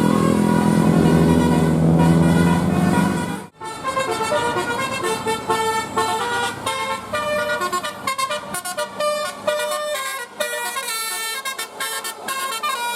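Indonesian bus 'telolet' horn, a set of multi-tone air horns, playing a quick tune of changing notes. A bus engine runs under it for the first three seconds or so. There is then a sudden cut, and another horn tune plays on its own.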